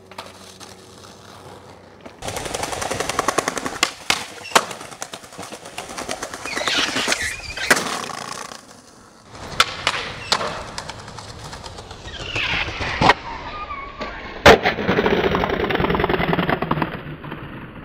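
Skateboard wheels rolling over rough pavement, broken by sharp cracks of the board popping and landing, several times over, and a couple of brief scrapes.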